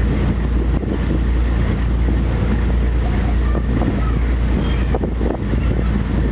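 Wind buffeting the microphone on a moving ferry, over a steady low rumble of the ferry's engine and water.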